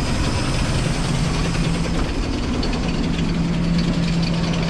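The 360 V8 of a 1976 Dodge Xplorer van idling steadily, left running after a restart following 15 years of sitting, its carburetor still gummed up inside.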